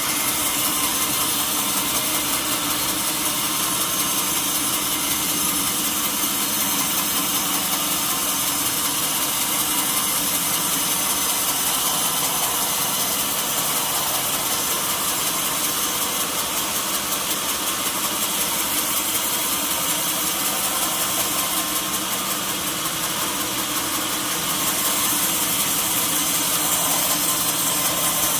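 Sawmill machinery running steadily: a continuous mechanical drone with many steady tones, getting a little louder and brighter near the end.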